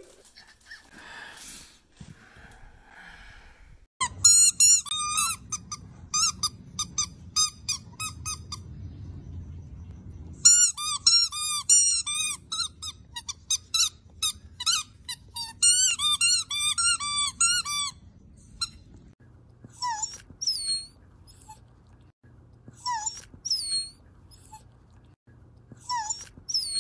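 Rubber squeaky ball toy squeaked over and over as a dachshund puppy chews it, in rapid runs of high squeaks, several a second. Near the end come sparser single squeaks that drop in pitch.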